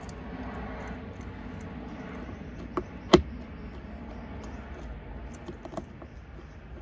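Screwdriver prying at a car's A-pillar trim panel, held by tight metal retaining clips: faint scraping and ticking, with one sharp click about three seconds in, just after a smaller one.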